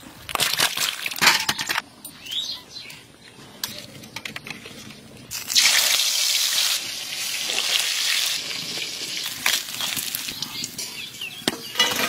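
Rustling and clicking for the first couple of seconds. Then, about five seconds in, hot oil starts sizzling loudly in a pan as whole spices and chilies go in, and the sizzle keeps going.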